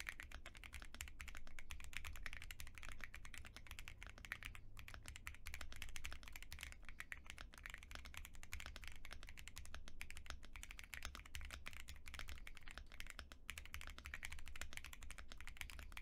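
Continuous fast typing on a mechanical keyboard fitted with dye-sublimated PBT keycaps: a dense, unbroken run of keystroke clacks.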